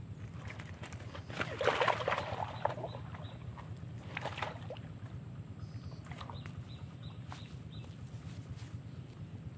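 Shallow pond water splashing and sloshing as a mesh sack is worked in it by hand, in two bouts: a louder one about a second and a half in, and a shorter one about four seconds in. A steady low hum runs underneath.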